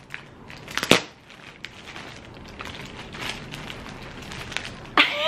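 Plastic packaging crinkling and rustling as a Squishmallow plush is handled and unwrapped, with irregular sharp crackles, the loudest about a second in.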